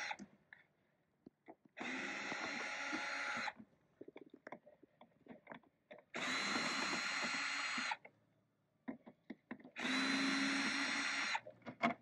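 A cordless drill-driver runs three times, each run lasting about a second and a half to two seconds at a steady pitch, as it backs out the panel screws. Light clicks and taps of handling come between the runs.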